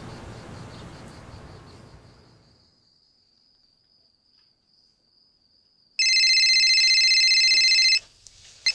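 Mobile phone ringing: a loud, steady electronic trill starts about six seconds in, lasts two seconds and cuts off, followed by a short click. Before it, faint outdoor background with a thin high steady whine fades to near silence.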